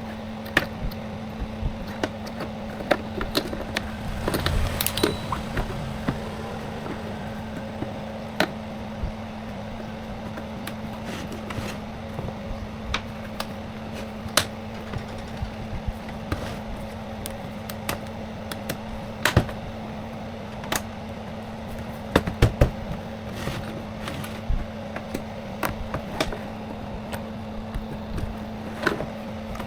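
Irregular small clicks and knocks of tools and parts being handled during repair work, over a steady low hum.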